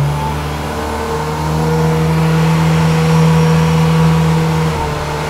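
Powerboat engine of a car-styled Watersports Car boat running under way. Its steady hum climbs in pitch about a second in and eases back down near the end.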